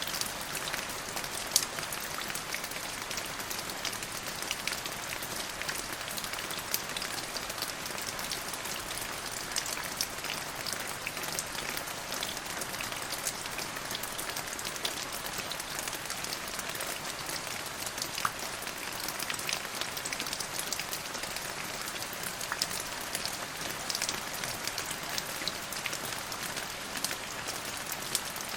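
Steady rain falling, a constant hiss dotted with many separate drop ticks.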